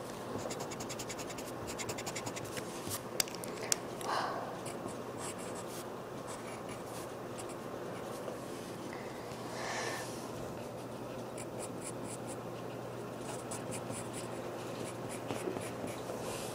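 Pencil scratching on paper in quick runs of short strokes, shading a drawing, with two sharp clicks about three seconds in.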